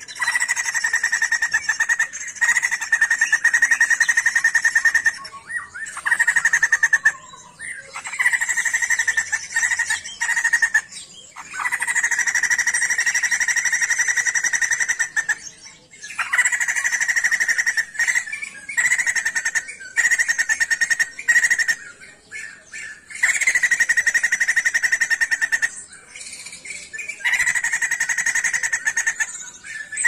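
Sumatran laughingthrush singing loudly in repeated bouts of a rapid, steady-pitched trill, each lasting two to four seconds, with short pauses between them.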